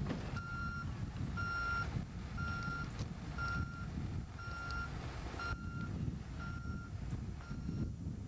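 A heavy vehicle's reversing alarm beeping at a steady pitch, about once a second, over the low rumble of its running engine.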